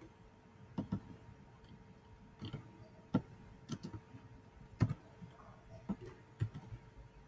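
Scattered, unevenly spaced clicks of a computer keyboard and mouse during coding, about ten over seven seconds.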